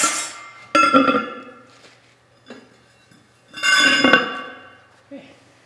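Steel suspension parts clanging as a Model T leaf spring is worked into place on a Model A Ford chassis: two loud ringing metal clangs, about a second in and again about three and a half seconds in, each ringing on briefly, followed by a few faint knocks.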